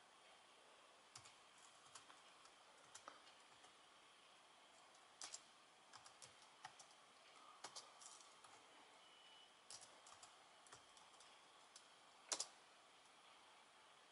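Faint typing on a laptop keyboard: irregular key clicks, with a louder pair of clicks about twelve seconds in.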